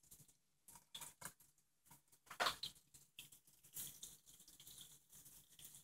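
Faint, irregular crackling and popping of breaded cheese sticks frying in a skillet of hot oil, with a louder crackle about two and a half seconds in.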